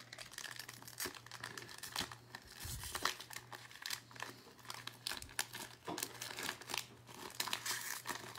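Foil wrapper of a 2019-20 Panini Illusions basketball card pack crinkling and tearing as it is pulled open by hand, in many irregular crackles.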